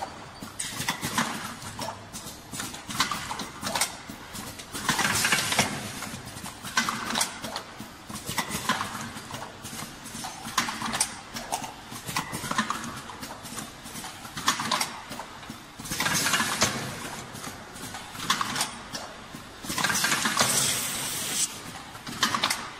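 Plasticine dough extruding, cutting and cup-filling machine running, clacking through its cycle with a loud burst of noise about every two seconds.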